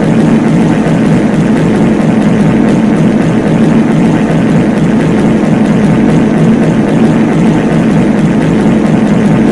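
Many reverb fart sound effects layered over one another into a loud, steady, low rumble, with no single fart standing out.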